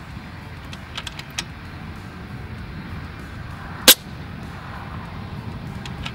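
FX Impact M3 PCP air rifle firing a single shot, a sharp crack about four seconds in. A few light clicks come around a second in and again near the end.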